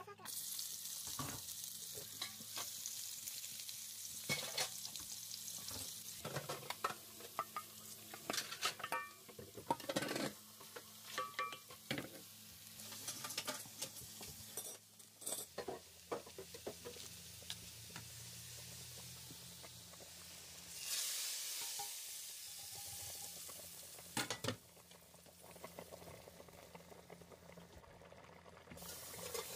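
Sliced onions frying in hot oil with a steady sizzle, for an onion tarka. A spatula clicks and scrapes against the pan in the first half as the onions are stirred. A louder rush of sizzling comes about two-thirds of the way through.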